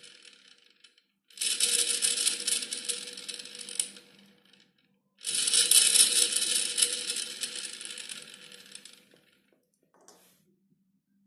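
AEG washing machine motor spinning with a metallic rattling grind from its motor bearing. Each spin starts abruptly and coasts down over a few seconds; one fades out at the start and two more follow, the second about two seconds in and the third about five seconds in. The grinding is the sound of a worn motor bearing.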